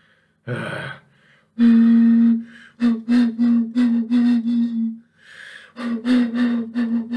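A man humming a buzzy note into the neck of a 40 oz glass malt liquor bottle, imitating a saxophone. A breathy gasp comes first, then held notes on one steady pitch, broken in the middle into short pulses about four a second.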